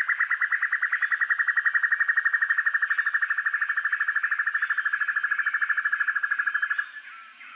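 Sempur-hujan rimba (banded broadbill) giving its long, fast trill: a steady run of about a dozen identical notes a second that stops abruptly near the end. Fainter, scattered chirps follow.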